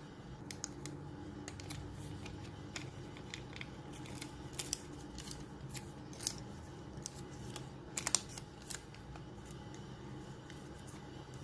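Paper and tape being handled on a notebook page: scattered small crinkles and clicks as a torn paper piece is pressed down and a strip of tape is peeled and smoothed over it, with a louder cluster of crackles about eight seconds in.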